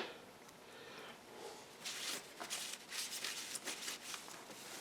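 Faint rustling and scattered light clicks, like hands handling tools and parts, busiest in the middle of the stretch; no machine is running.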